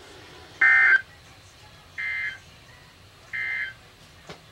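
Three short bursts of EAS digital data tones, the end-of-message code that closes an alert on a weather radio broadcast. Each burst is a fraction of a second long and they come about a second and a half apart, the first the loudest, over a faint steady hiss.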